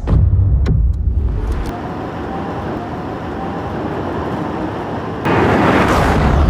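Rimac Nevera electric hypercar driving. A heavy low rumble comes first, then a faint rising electric-motor whine under road and wind noise. About five seconds in, a sudden louder rush of wind and tyre noise sets in.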